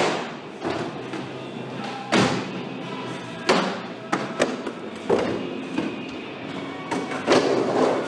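Skateboard riding a concrete bowl: urethane wheels rolling with a continuous rumble, broken by about half a dozen sharp clacks and thuds as the board hits the coping, snaps and lands. The loudest strikes come right at the start and a little before the end.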